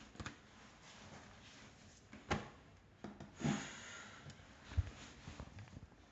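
Handling sounds of a ballpoint pen and notebook on a wooden table: a sharp tap about two seconds in, a paper-like rustle a second later, then a short low thump near the five-second mark.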